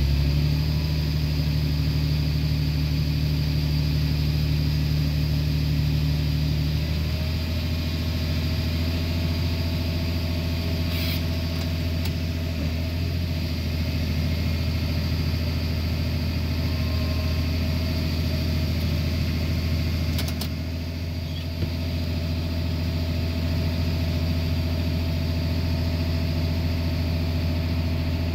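Tractor engine running steadily, heard from inside the cab; its tone shifts about seven seconds in, and there are a couple of light clicks.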